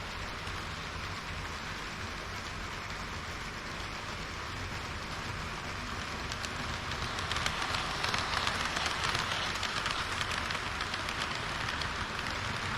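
HO-scale model train running on the layout's track: a steady rolling hiss of metal wheels on rail with fine clicks. It grows louder about seven seconds in and eases slightly near the end.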